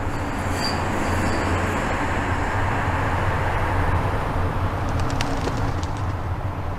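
Steady rushing wind noise on the microphone, swelling a little towards the middle, with a few faint clicks near the end.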